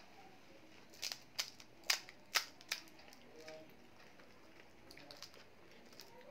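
Crisp fried golgappa (pani puri) shell cracking as a thumb punches through it: about half a dozen sharp cracks in under two seconds, starting about a second in.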